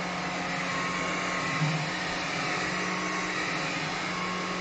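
Cordless Vax Glide wet-and-dry floor vacuum running on its high power mode: a steady motor whine over a low hum, with one brief louder blip about one and a half seconds in.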